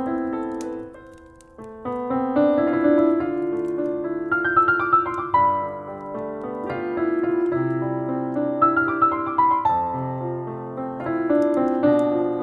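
Solo piano playing a slow, nostalgic melody over held chords, with a brief pause about a second in before the next phrase. A few faint crackles of a fireplace sound sit under the music.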